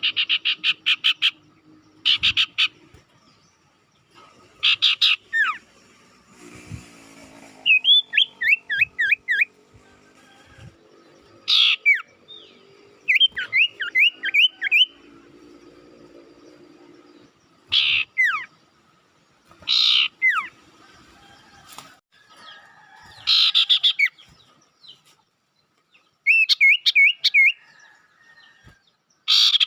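Bird-lure recording of songbird calls from the sirtu and the cipoh (common iora). Short bursts of rapid chattering notes come every few seconds, alternating with quick runs of looping whistled notes.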